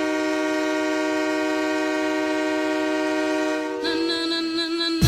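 Ice hockey goal horn sounding a loud, steady chord of several notes, like a train air horn. About four seconds in it changes to a single held note with brighter overtones.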